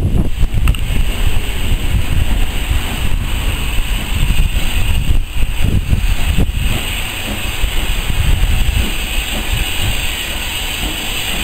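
Steam locomotive and its train passing at a distance with a steady rumble, mixed with gusty wind buffeting on the microphone.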